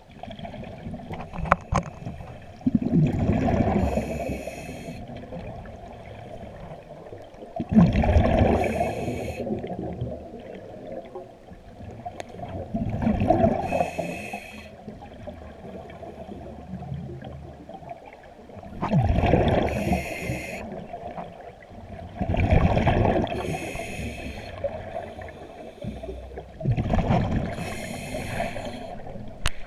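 A scuba diver breathing through a regulator underwater, recorded close to the camera: six loud bubbling exhalations, one every four to five seconds, with quieter inhalations between them.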